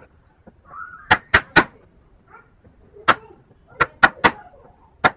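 A wood chisel being struck to drive it into the end of a small wooden block, chopping out the waste of a bridle joint: sharp knocks in groups, three in quick succession twice with single blows between them.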